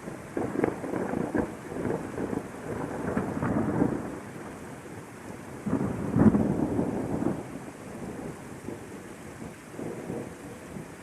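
Thunderstorm: steady rainfall with rolling thunder. The rumbling swells to its loudest about six seconds in, then dies away under the rain.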